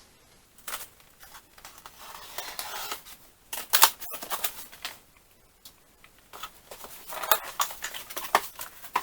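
A cardboard shipping box being cut open with a hobby knife and its packing handled: irregular scraping, rustling and sharp clicks, loudest about four seconds in.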